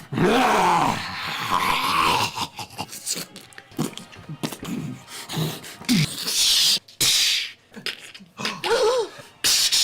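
Voice actors making sound effects with their mouths, in a rapid run of short clips cut together. There are pitched vocal glides, and a longer hiss about six and a half seconds in.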